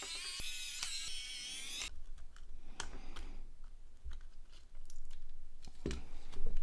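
A short high-pitched electronic sound that cuts off about two seconds in, then scattered small clicks and taps of the plastic Nokia X2-01 phone being handled and taken apart.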